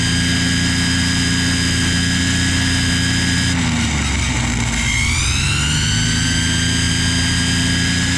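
Ryobi string trimmer running at speed with a high whine. About three and a half seconds in it slows, then speeds back up around five seconds in and runs steadily again.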